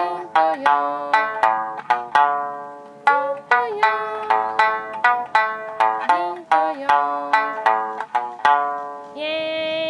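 Sanshin, the Okinawan three-string lute, plucked one note at a time in a slow practice melody, about two notes a second; each note rings and dies away, and a few slide in pitch.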